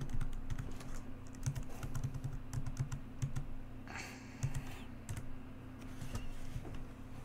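Typing on a computer keyboard: irregular clusters of key clicks with short pauses between them.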